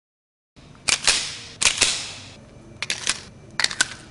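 Airsoft pistol firing quick double taps: four pairs of sharp cracks, each pair about three quarters of a second after the last.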